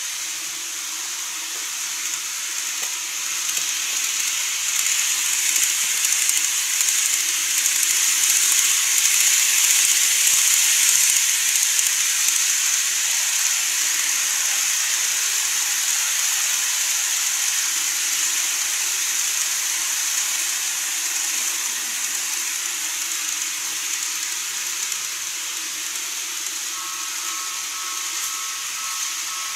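Running noise of a TOMIX N-scale model train passing on the track: a steady high hiss of wheels and motor that grows louder over the first ten seconds or so, then slowly fades as the train moves away.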